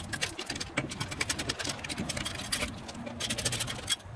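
Ratchet socket wrench clicking in quick bursts with short pauses as lug nuts are run down onto the wheel studs.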